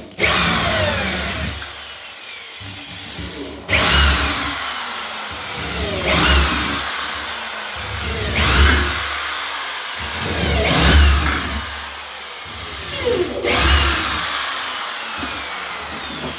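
Electric drill boring pilot holes through wooden floorboards into the joists for screws, meant to pull the boards tight and stop a creaking floor. It runs in about six bursts a couple of seconds apart, the motor's whine dropping in pitch in each.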